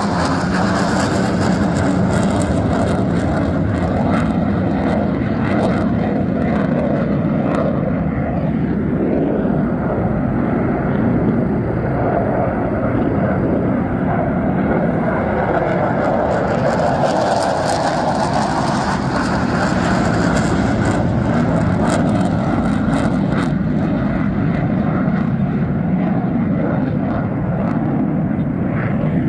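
Jet noise from McDonnell Douglas F-15C Eagles taking off in succession and climbing out: the twin Pratt & Whitney F100 turbofans make a loud, continuous rumble that swells and eases slowly as each jet passes.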